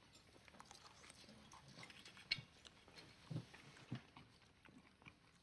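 A man chewing a mouthful of pastry with cream: soft, wet mouth sounds and a few small clicks, faint against quiet room tone.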